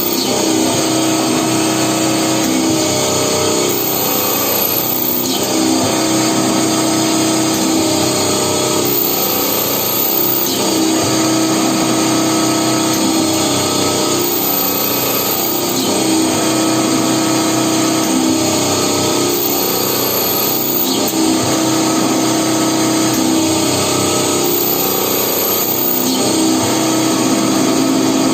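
Special-purpose indexing-table drilling machine running through its automatic cycle over continuous motor noise. A steady tone holds for a few seconds, then drops out briefly, repeating about every five seconds.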